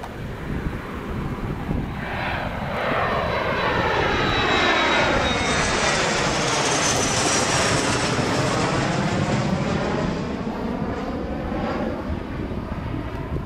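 Jet airliner climbing out after takeoff and passing directly overhead: the engine noise builds over a few seconds, peaks as the plane goes over, then fades. A high whine slides down in pitch as it passes.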